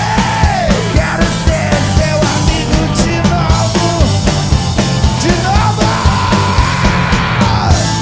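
Live rock band playing a fast, loud song with drums, bass and electric guitar under a singer's voice; a long held high note near the end falls away as it stops.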